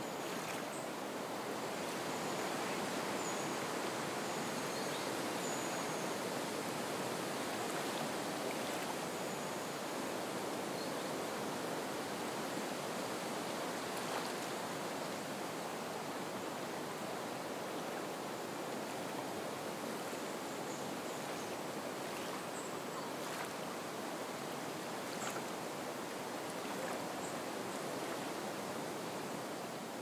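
Soft wind over a reed marsh with water lapping at the shore, heard as a steady, even hiss. A few faint high chirps come through now and then.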